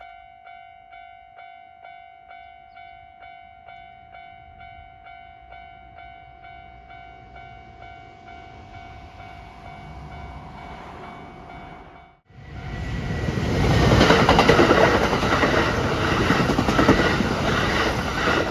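Japanese level-crossing warning bell ringing at a steady two strikes a second while a Kintetsu train approaches with a rising rumble. About twelve seconds in, the train passes over the crossing loudly with wheel clatter, the bell still faintly ringing beneath.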